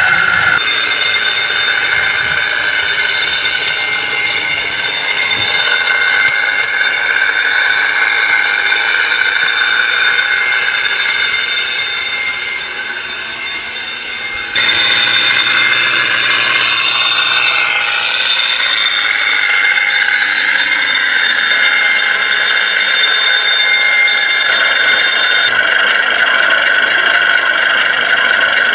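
Radio-controlled 1:6 scale model fire engine running, a steady mechanical whine with rattling. The sound dips a little about halfway through, then comes back abruptly.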